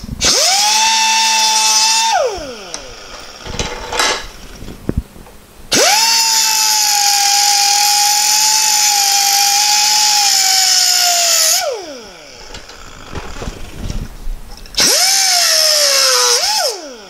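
Air-powered cut-off tool with a small abrasive wheel cutting a 6 mm steel Allen wrench: a high whine over hissing air in three runs, a short one, a long one of about six seconds and another short one. During the long run the pitch sags slightly as the wheel bites, and each run ends in a falling whine as the wheel spins down.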